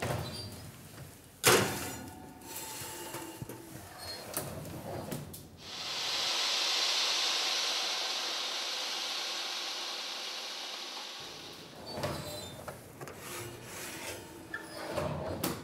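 A metal baking tray slides into a deck oven with a knock about a second in. Then comes a steady hiss of steam injected into the oven for about five seconds before baking, fading slowly. Near the end the tray scrapes and clatters as it is pulled back out.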